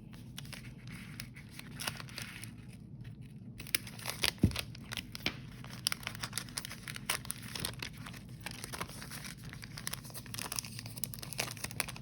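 Scissors cutting open a package, its wrapping crinkling and tearing, with one sharp loud click about four seconds in.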